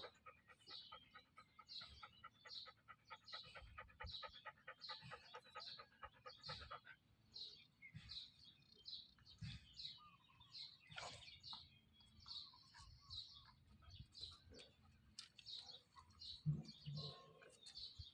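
Faint, fast panting from a dog, quick even breaths for about the first seven seconds, with small birds chirping steadily in the background.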